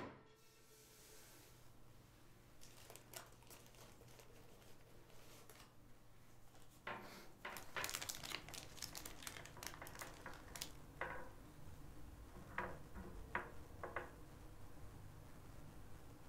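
Baking paper faintly crinkling and crackling as it is peeled away from a steamed sponge cake, in short rustles that come thickest about halfway through.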